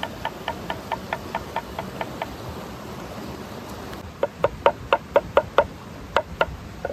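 Cleaver chopping cucumber on a wooden cutting board: a quick run of sharp knocks from about four seconds in, loud and slightly uneven. A quieter, evenly paced run of ticks, about four a second, sounds in the first two seconds over a steady background hiss.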